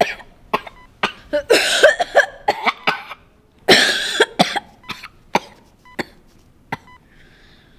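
A person coughing in a few short bouts over the first half, followed by quieter clicks and faint short beeps about once a second near the end.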